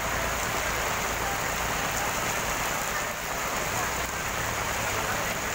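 Heavy rain falling steadily onto a flooded street and into the standing water.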